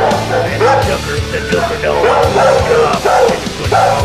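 Many shelter dogs barking and yelping at once, a dense overlapping chorus of short barks echoing in a hard-walled kennel room.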